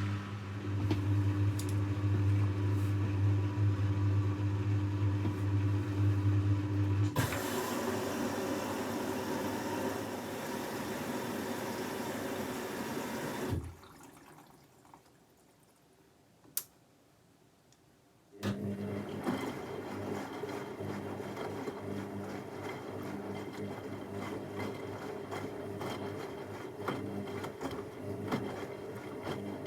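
Techwood WB 91042I washing machine early in its cycle: a steady low electric hum for about seven seconds, then water rushing in, which stops for a few seconds broken by a single click and then starts again.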